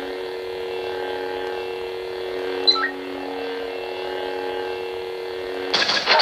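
Lightsaber sound-font idle hum from a Sabermach Dark Storm saber: a steady electronic drone made of several held tones. A brief high chirp comes about two and a half seconds in, and a louder burst of effect sound starts near the end.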